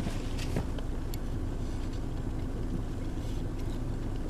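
Steady low hum of a car idling with its heater running, heard from inside the cabin, with a few faint clicks in the first second.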